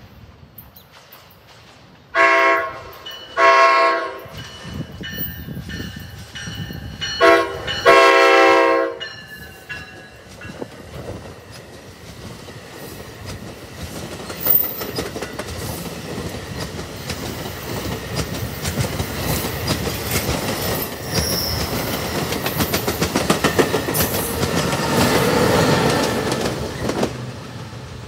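The Nathan Airchime horn on an NJ Transit Multi-Level cab control car sounds the grade-crossing signal: long, long, short, long. Then the push-pull commuter train rumbles past with wheels clicking over the rail joints. The sound grows loudest as the ALP-46A electric locomotive pushing at the rear goes by, and drops off near the end.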